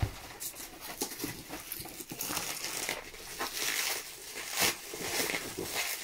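Plastic bubble wrap being pulled and unwrapped by hand, an irregular run of crinkling and crackling with one louder crackle a little over halfway.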